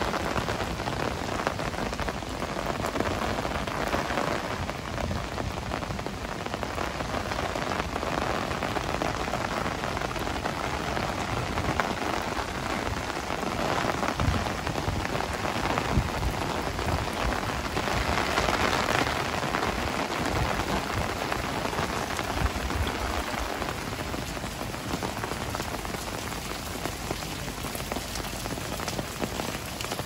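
Heavy rain falling steadily, with a brief swell in intensity a little past the middle.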